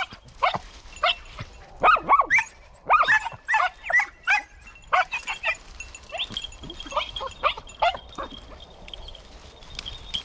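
Podenco hounds yelping in quick, high-pitched cries, several overlapping, the excited hunting cry of hounds working game in the brush. The cries come thick at first and thin out in the second half.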